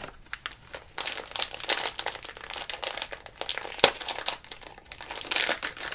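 A foil blind-bag packet crinkling as it is handled and opened, with a dense crackle and one sharp click about four seconds in.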